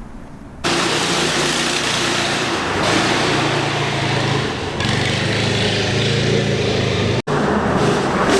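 A 420cc single-cylinder go-kart engine running, starting abruptly about half a second in and cutting out for an instant near the end.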